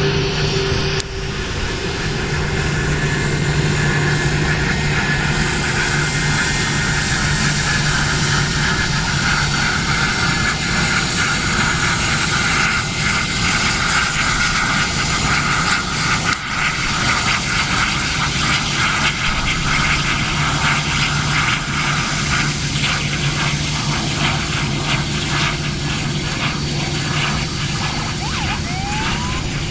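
Aircraft engines running steadily, a low hum with a higher whine over it.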